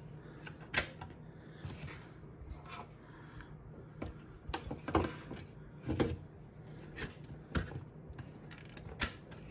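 Scattered sharp clicks and knocks of hot-plug SSD drive carriers being handled, unlatched and pushed into a rack server's front drive bays, about a dozen separate hits.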